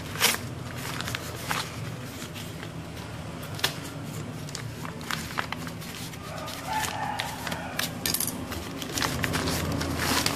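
Paper parcel wrapping being slit with a small folding knife and torn open by hand, with the plastic bag of handlebar tape inside crinkling: irregular crackles, rips and snaps.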